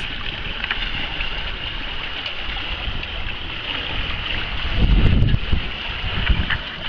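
Steady rush of water along the hull and wake of a small sailboat under way, with wind buffeting the microphone in heavy low gusts about five seconds in.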